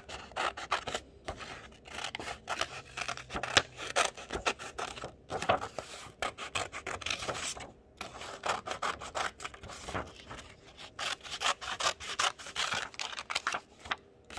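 Scissors cutting through construction paper: a rapid, irregular run of short snips.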